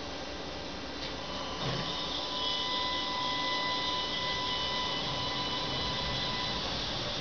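Tatra T5C5 tram moving off from a stop, a low thump about a second and a half in, then a steady electric whine from its traction equipment.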